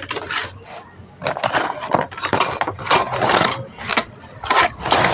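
Repeated clattering and clinking of tools and metal parts being handled during a washing machine repair, in short irregular bursts.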